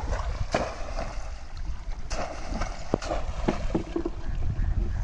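Water splashing and sloshing as a bamboo polo fish trap is plunged repeatedly into shallow flood water, with several sharp splashes, over a steady low wind rumble on the microphone.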